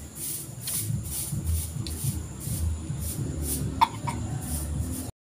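Close-up eating sounds: chewing and slurping spoonfuls of corn soup from a plastic bowl, with soft mouth clicks about twice a second and one sharp click about four seconds in.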